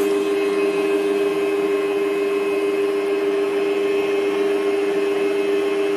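Electric kitchen mixer motor running steadily at one speed, mixing batter: an even, constant-pitched hum.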